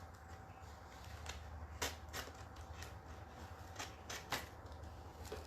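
Faint handling of packaging and boards, with a few sharp clicks and taps, the loudest about two seconds in and just after four seconds, over a low steady hum.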